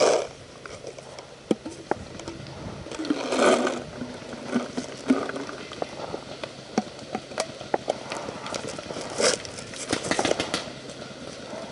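Rustling and scraping of movement through bush, with scattered sharp clicks and snaps. The rustling swells louder about three and a half seconds in and again near the end.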